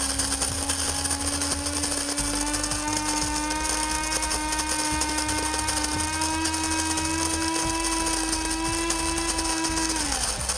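Cuisinart DBM-8 Supreme Grind burr coffee grinder running, a steady motor whine that rises slightly in pitch as it grinds the beans. It then winds down with a falling pitch and stops near the end, shutting off by itself once the set amount is ground.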